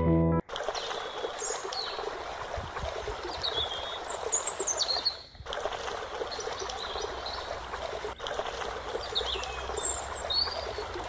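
Steady rush of flowing river water, with birds calling over it in short high chirps and falling whistles several times. Piano music cuts off just at the start, and the sound drops out briefly about five seconds in.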